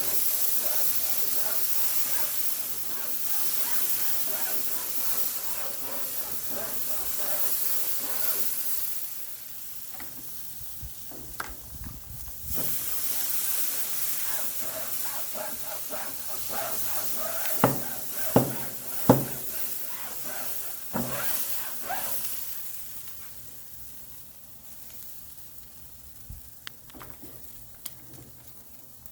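Cold-water-soaked sponge head of a grill steamer brush scrubbed on hot grill grates, the water hissing and sizzling into steam. The hiss is strongest for the first several seconds and fades away toward the end, with three sharp knocks a little past the middle.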